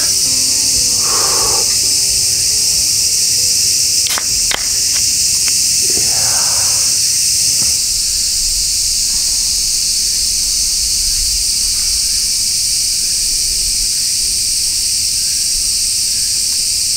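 Cicadas droning steadily, a loud, high-pitched shrill that fills the air. Two sharp clicks come about four seconds in.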